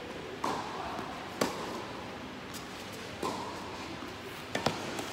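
Tennis rally: a few sharp pocks of rackets striking the ball and the ball bouncing on the hard court, the loudest about a second and a half in.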